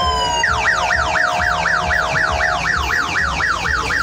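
Convoy vehicle's electronic siren switching from a falling wail to a fast yelp about half a second in, its pitch sweeping up and down about four times a second. A steady tone runs under it and stops a little past halfway.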